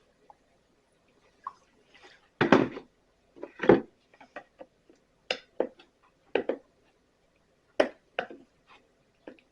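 A series of irregular knocks and clatters as parts and tools are handled and set down, the two loudest about two and a half and three and a half seconds in.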